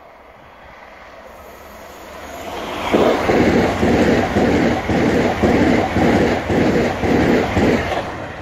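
LNER Class 801 Azuma electric train passing close by. Its wheels on the rails build up over about two seconds into a loud rush with a regular beat as the cars go past, which falls away suddenly near the end as the last car clears.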